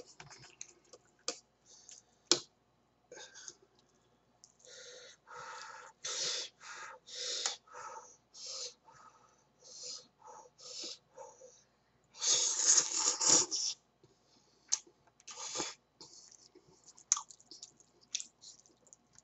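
A person slurping and chewing hot instant ramen noodles: a run of short, noisy slurps, with one longer, louder slurp about twelve seconds in and a few sharp clicks scattered through.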